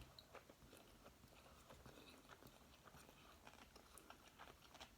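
Faint chewing of sushi: soft, irregular small mouth clicks.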